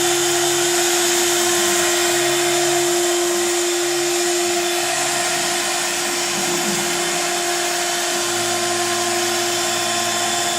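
Home-built CNC router running: a steady motor whine over a hiss, with lower tones that step up and down in pitch every second or two. One low steady tone stops about halfway through.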